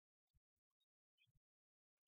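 Near silence, with only a few very faint, scattered short blips.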